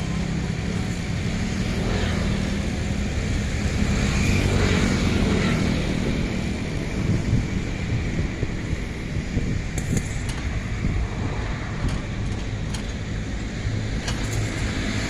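Mini excavator's diesel engine running steadily with a low hum as the machine swings and digs. A few light clicks come in the second half.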